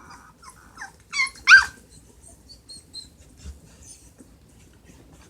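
Litter of puppies about a week and a half old whimpering and squeaking. Faint short squeaks come first, then one louder whining cry that falls in pitch about a second and a half in, then faint high chirps.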